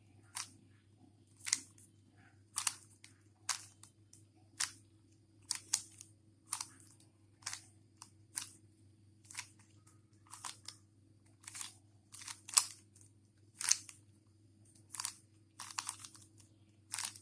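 Rubik's cube faces being twisted by hand through a move sequence: short plastic clicks, roughly one a second at an uneven pace, some in quick pairs, over a faint low hum.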